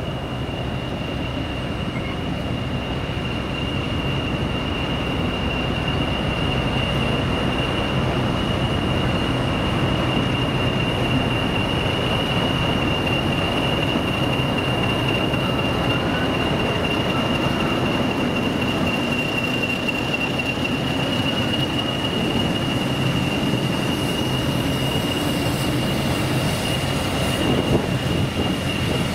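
English Electric Class 40 diesel locomotive running with its train, a deep engine drone under a steady high whistle from its turbochargers, growing louder over the first few seconds.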